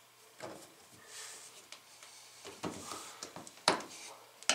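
Quiet metal clicks and scrapes of a flat screwdriver working at the wire spring clamp that holds a front-load washer's rubber door boot, with the sharpest click near the end.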